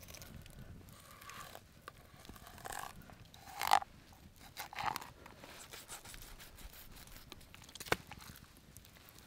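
Faint, scattered crunching and scraping handling noises. The loudest comes about four seconds in, and a single sharp click comes near the end.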